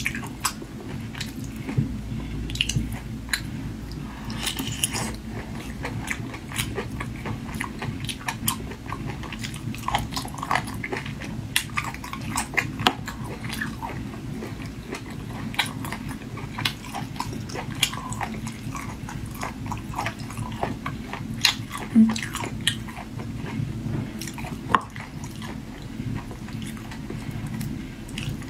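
Close-up eating sounds of marinated raw crab: shell pieces cracked and picked apart by hand, with many small clicks, sucking and wet chewing of the soft meat and roe.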